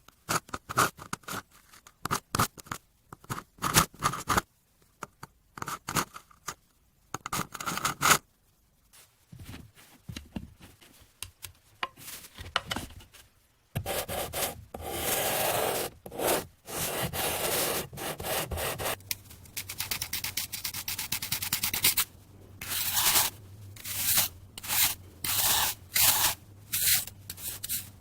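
Kinetic sand being packed into a mold and scraped with a thin metal ruler: gritty rubbing and scraping strokes, first short and separate, then one long continuous scrape past the middle, a stretch of fast fine crackling, and a run of strokes about one a second near the end.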